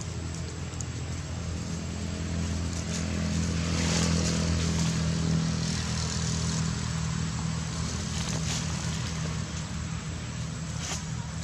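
Low engine hum of a passing motor that grows louder to a peak about four to five seconds in, then slowly fades.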